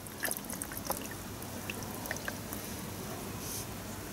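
Water trickling and dripping at a low level, with a few small scattered ticks.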